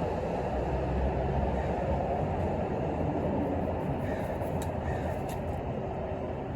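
Steady low rumbling background noise, with a few faint clicks in the second half.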